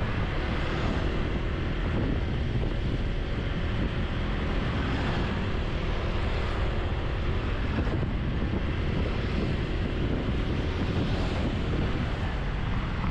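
Steady wind rush over the microphone and road noise while riding a motor scooter.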